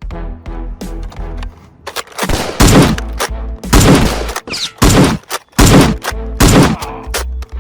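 Background music with a beat, then from about two seconds in a run of loud gunshot sound effects, single shots spaced roughly a second apart, fired over the music during a Nerf blaster battle.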